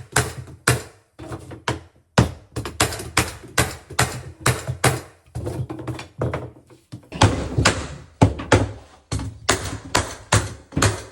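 Rapid, uneven series of hard knocks on hardwood floor boards being tapped into place during installation, about two to four strikes a second with short pauses between runs.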